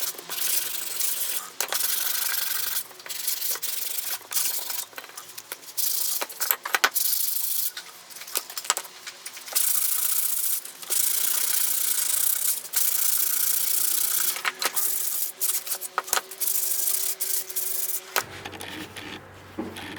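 Hand sanding with an abrasive in repeated, uneven back-and-forth strokes with short pauses between them. It stops about two seconds before the end, where a faint low hum takes over.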